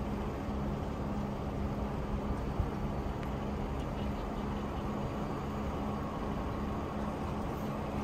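A vehicle engine idling steadily, a constant low hum under an even rushing noise.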